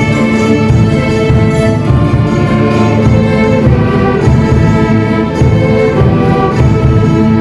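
Instrumental orchestral music: melody notes held and changing every second or so over a pulsing bass.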